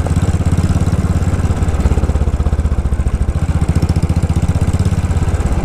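Motorcycle engine running steadily at low revs, a low, even pulsing.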